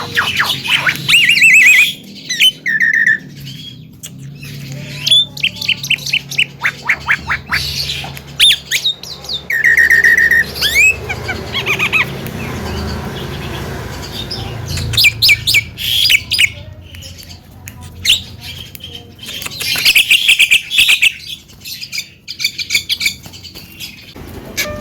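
Javan myna singing a long, varied song: rapid runs of harsh chattering strokes and squawks mixed with short held whistles, broken by brief pauses.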